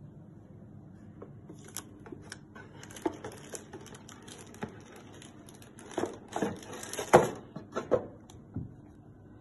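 Hands rummaging in a cardboard gift box, crinkling the packaging and filler, with several knocks as a ceramic wax melt warmer is lifted out; the loudest knock comes about seven seconds in.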